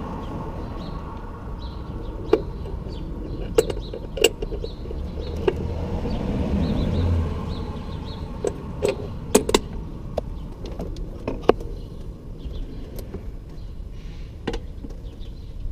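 Scattered sharp metallic clinks and knocks of hand tools and parts being handled, about ten in all, several close together around the middle, over a steady low rumble.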